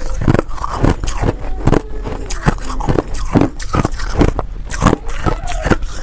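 Buckwheat-flavoured reshaped (refrozen) shaved ice being bitten and chewed close to the microphone. Crisp crunches come about two a second, crunchy and powdery as the ice breaks up in the mouth.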